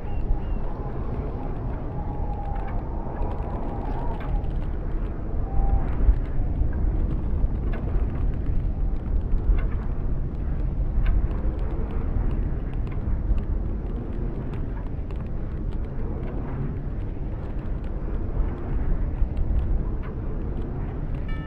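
Wind rumbling low and steady around a turning windmill, with scattered creaks and clicks from its turning machinery, and a wavering squeak about two to four seconds in.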